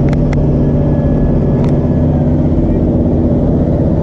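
Steady, loud low mechanical drone of running machinery, with a few sharp clicks about the first second and again later.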